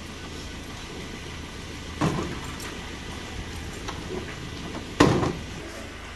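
Two heavy knocks about three seconds apart, the second louder, as tools are handled in a pickup truck's metal bed, over a steady low hum.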